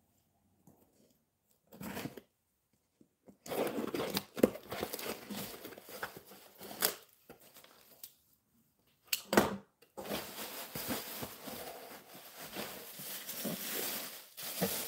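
Crumpled paper and plastic packing rustling, crinkling and tearing as it is pulled out of a cardboard shipping box. Quiet for the first few seconds apart from one short rustle, then steady rustling, with a short sharp rip about nine seconds in.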